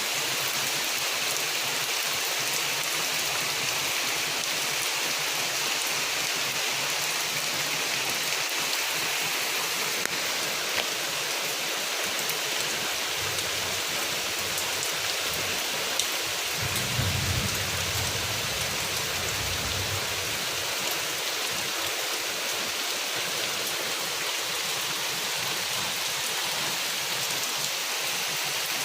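Steady rain falling, an even hiss of drops on surfaces, with a brief low rumble about two-thirds of the way through.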